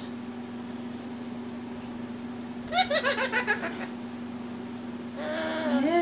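A short giggle-like burst of laughter, a quick run of pulses falling in pitch, about three seconds in, over a steady low hum.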